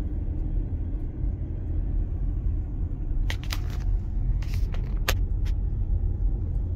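Steady low road and engine rumble of a car being driven, heard inside the cabin. A few short sharp clicks come about three to five seconds in.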